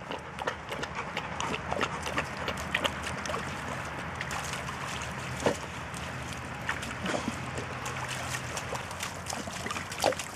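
A boxer and a black Labrador splashing and wading through a shallow muddy puddle: irregular splashes and sloshing water, with paws slapping in wet mud.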